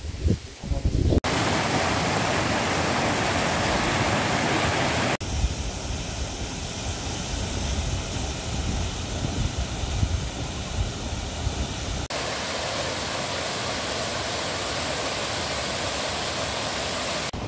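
Steady rush of flowing water from a mountain stream and a small waterfall, in takes that change abruptly about a second in, at about five seconds and at about twelve seconds. Wind buffets the microphone for the first second.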